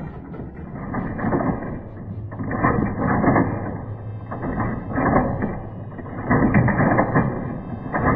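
Plastic toy volcano playset being worked by hand: rattling, clattering plastic mechanism and plastic lava balls rolling down the ramps, in repeated surges every second or two.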